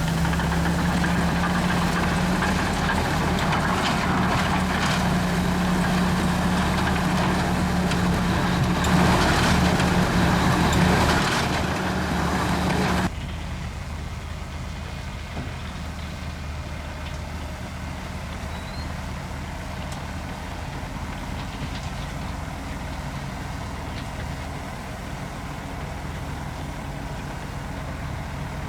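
Komatsu D61EX bulldozer's diesel engine running steadily, with a louder, rougher stretch about two-thirds of the way through its first half. About halfway through, the sound drops suddenly to a quieter, steady engine hum.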